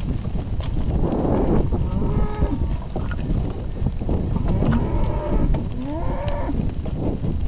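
Hereford and Hereford × Limousin calves mooing: three calls, the last one rising in pitch.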